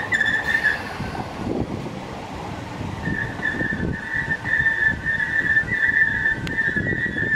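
Class 315 electric multiple unit rolling slowly along the platform, its wheels squealing in a steady high tone over the rumble of the running gear. The squeal drops out soon after the start and comes back about three seconds in.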